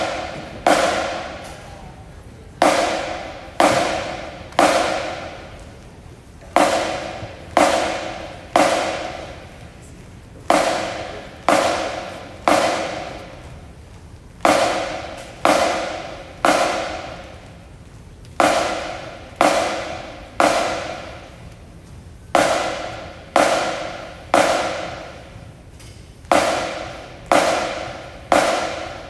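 A drum beating a slow entrance cadence: three hits about a second apart, then a one-beat rest, repeated throughout. Each hit rings out in a large, echoing gym.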